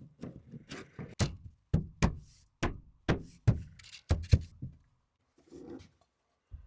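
An uneven run of sharp knocks and thuds, about two a second, stopping after about four and a half seconds.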